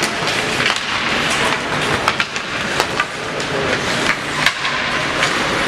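Ice hockey play on a rink: a steady hiss of skates on the ice with scattered sharp clacks of sticks, puck and boards.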